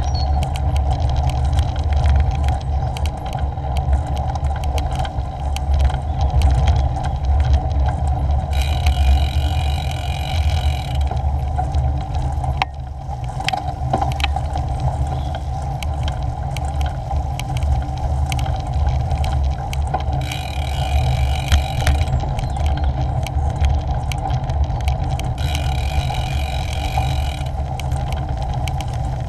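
Bicycle ridden along a rough dirt and gravel path: a steady low rumble of tyres and wind on the microphone, with frequent small rattles and clicks. Three times a higher-pitched buzz comes in for about two seconds.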